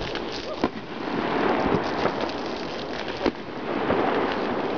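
New Year's fireworks going off all around: a dense, continuous crackle of many bangs at different distances, with a few sharper reports standing out, about a second, two seconds and three seconds in.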